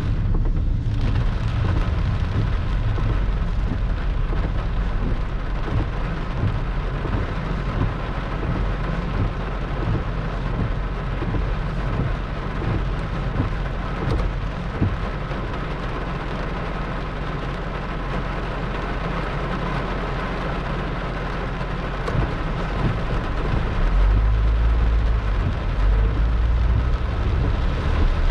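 Heavy rain pouring steadily, with a low rumble underneath that swells near the end.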